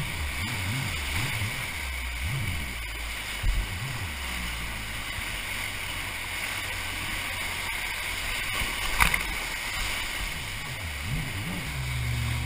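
Kawasaki rescue jet ski's engine revving up and down repeatedly, then held steady, and swinging up and down again near the end, over rushing whitewater and spray around the hull. Two short sharp knocks, about three and a half and nine seconds in.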